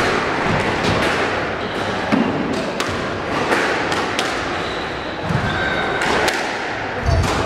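A squash rally: the rubber ball cracks off rackets and the court walls, a sharp hit about every second, with brief squeaks of court shoes on the wooden floor.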